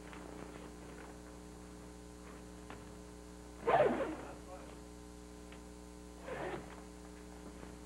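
Steady electrical mains hum, with two brief louder, indistinct sounds, the first and louder about four seconds in, the second about six seconds in.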